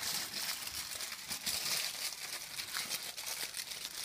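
Aluminium foil rustling continuously as hands fold and press it into a wrapped parcel.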